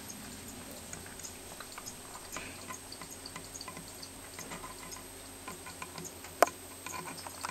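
Faint, irregular small clicks and ticks, with one sharper click about six and a half seconds in.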